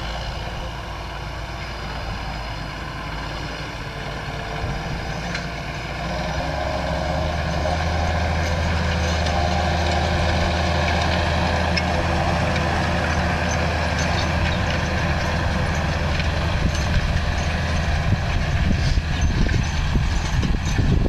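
John Deere 6930 tractor's six-cylinder diesel engine running steadily under load while pulling a disc harrow, growing louder from about six seconds in as the tractor comes closer and passes.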